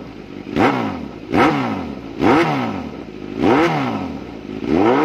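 Kawasaki Z900's inline-four engine breathing through a custom stainless header and Akrapovic silencer, revved in about five short throttle blips. Each blip jumps up sharply and falls back toward idle, the last held a little longer.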